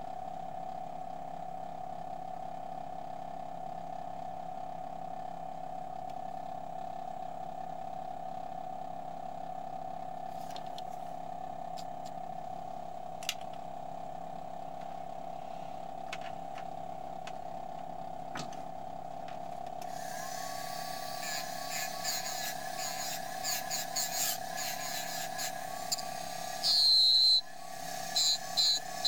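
A steady machine hum, joined about two-thirds of the way in by short, stop-start bursts of high buzzing from a power engraving handpiece as the graver cuts lines into a nickel. The loudest burst comes near the end.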